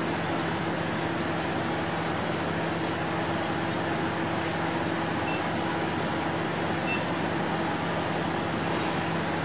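JR Kyushu 811 series electric train starting off slowly from a station, giving a steady low electrical hum.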